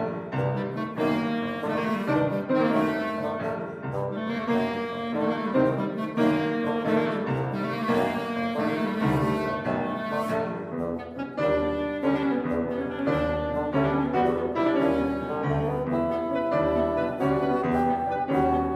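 A chamber trio of clarinet, bassoon and piano playing live, with many quick notes throughout. About halfway through a deep, rhythmic bass line comes in underneath.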